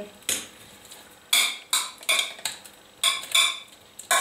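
A metal spoon scraping and clinking against a stainless steel bowl as stewed prunes are scraped out of it into a saucepan, about seven short strokes with a metallic ring.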